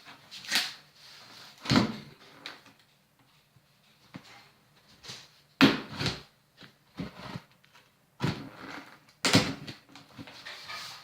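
Packaging being handled during an unboxing: irregular rustles, scrapes and light knocks of box and wrapping, in short bursts with pauses between.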